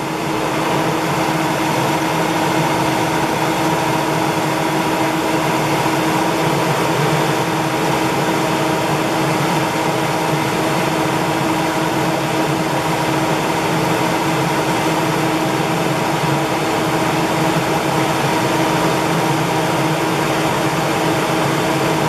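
Gold 'N Hot Elite overhead bonnet hair dryer running: a steady rush of blown air with a constant motor hum and a few steady tones over it.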